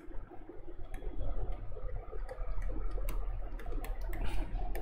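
Light, irregular clicks and taps of a stylus writing on a pen tablet, over a steady low electrical hum.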